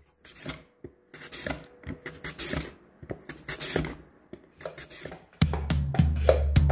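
Sweet potato pushed back and forth across a mandoline slicer's blade: a run of short scraping strokes, a little more than one a second, as thin slices drop onto the wooden board. Background music with drums comes in near the end.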